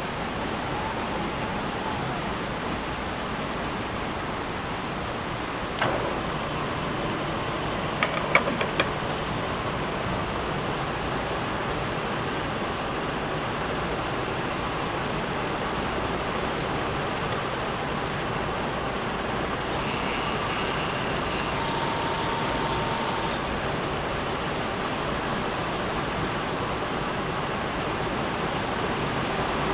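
Milling machine running steadily, its end mill cutting down through a bronze bar to split the milled part off. A few sharp clicks come about six and eight seconds in, and for about three and a half seconds around twenty seconds in, a shrill whine of several high tones rises over the steady running.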